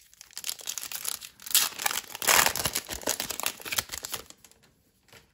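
Foil trading-card pack being torn open and its wrapper crinkled: a dense crackling that is loudest about two seconds in and dies away after about four seconds.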